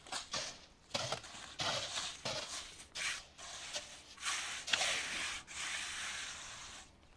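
Scraping of soil: a run of short, irregular scraping strokes, then a longer steady rub from about five and a half seconds in until shortly before the end.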